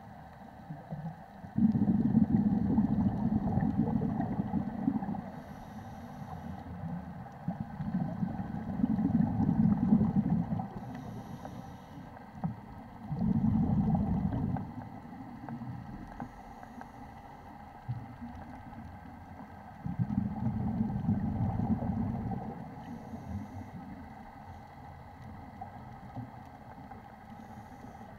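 Scuba diver breathing through a regulator, heard underwater: four long, low bubbling rumbles of exhaled air, about six seconds apart, with a faint short hiss of inhalation between them.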